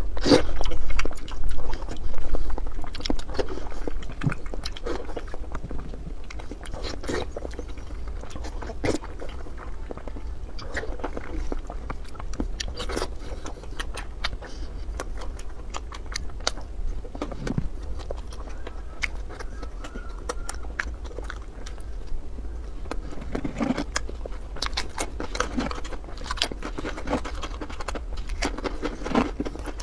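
Close-miked eating: a person biting and chewing food, with many short, sharp crunchy clicks and mouth sounds, loudest during the first few seconds.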